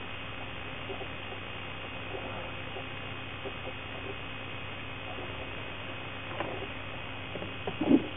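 Steady electrical mains hum and hiss on the recording. Near the end come a few brief, soft sounds as someone handles the equipment on the table.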